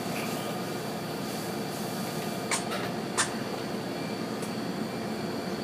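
Steady indoor background hum with two short sharp clicks, about two and a half and three seconds in.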